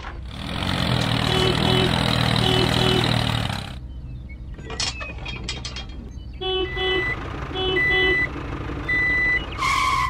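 Heavy truck sound: a loud engine rush for about three seconds, then a reversing alarm beeping three times about a second apart.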